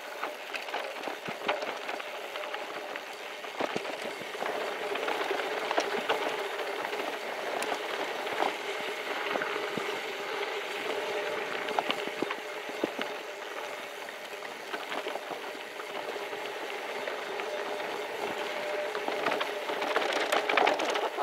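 2023 Scott Addict Gravel 10 gravel bike rolling fast down a dirt road, heard from its handlebar-mounted camera: a steady rush of tyres on gravel with frequent small clicks and rattles, getting louder and rougher near the end.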